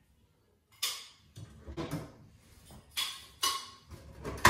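Sharp knocks and clatters of a ceiling fluorescent fixture being handled and its T8 tubes taken out, starting about a second in, the loudest knock at the very end.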